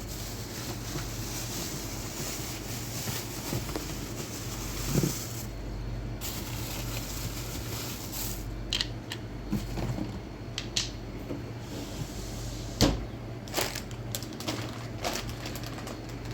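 A steady low hum and hiss, with scattered knocks and clicks through the second half, the loudest about two-thirds of the way in.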